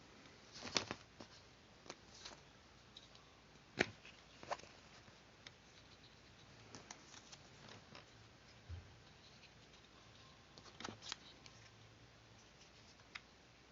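Paper craft being worked by hand: scattered short clicks and rustles of paper being handled and cut, at irregular moments with quiet gaps between.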